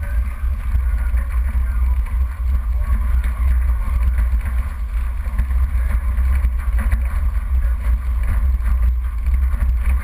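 Off-road 4x4 driving along a rough dirt track: a steady, deep engine and road rumble, with many small knocks and rattles as it jolts over the rocky surface.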